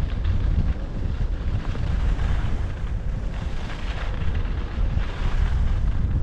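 Wind buffeting the microphone of a skier's camera during a downhill run, a steady low rumble. Over it runs the hiss of skis sliding over snow, swelling and easing with the turns.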